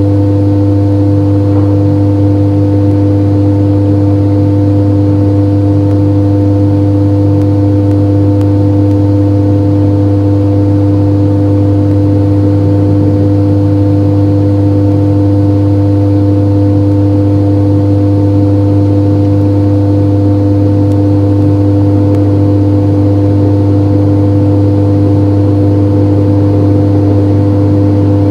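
A loud, steady electrical hum made of a few fixed tones, unchanging throughout, with no owl calls heard over it.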